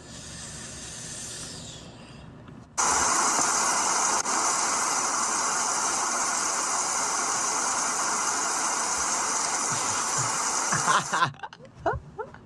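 Recorded rain sound played back: a steady, loud hiss of rain that cuts in abruptly about three seconds in and cuts off abruptly near the end, after a fainter hiss at the start.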